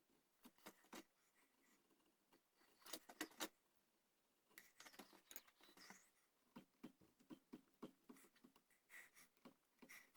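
Faint hand carving of a wooden gunstock: irregular small clicks and short scrapes of a carving tool cutting wood, with a denser run of scraping about three seconds in.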